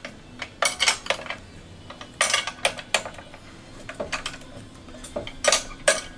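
Wrench clinking on metal bolts as the guard bolts are tightened: sharp metallic clicks and clanks in several short clusters.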